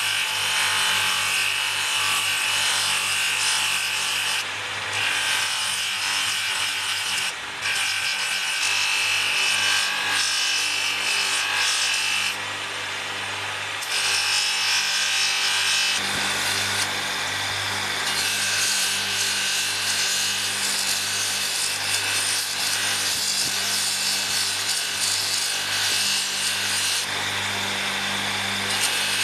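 Bamboo spoon pressed against a motor-driven drum sander, a steady abrasive hiss of wood on the spinning sanding sleeve over the motor's hum. The hiss eases briefly a few times in the first half.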